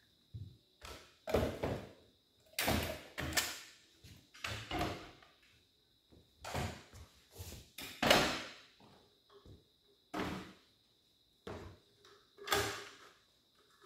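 Handheld power tools being set down and slotted into holders on a steel tool table: a string of separate clunks and knocks of metal and plastic on metal, some with a short ring. A faint steady high whine runs underneath.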